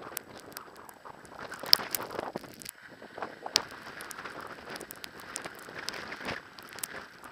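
Skis hissing and scraping along a packed snow track while being towed up by a drag lift, with scattered sharp clicks and creaks, the loudest about two seconds and three and a half seconds in.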